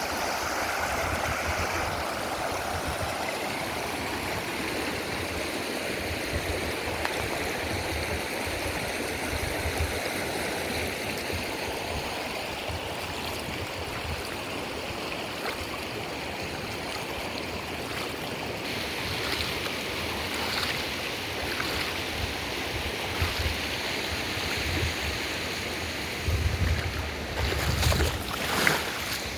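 River water flowing steadily, a constant rushing. A few low bumps come near the end.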